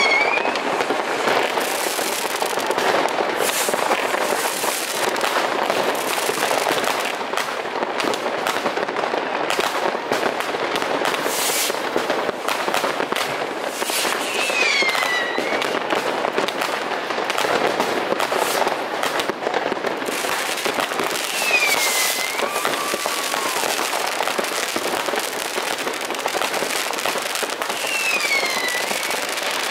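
Dense, continuous New Year's Eve fireworks: many rockets and firecrackers crackling and banging without a break. About four short whistles falling in pitch cut through the bangs.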